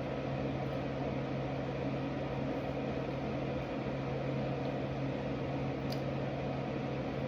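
Steady low hum over even hiss, an unchanging room drone like a fan or appliance, with a faint click about six seconds in.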